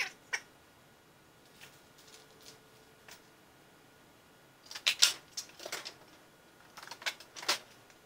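Small tools and hardware being handled on a metal tool chest: a few scattered clicks, then two short bursts of rattling and clinking about five and seven seconds in.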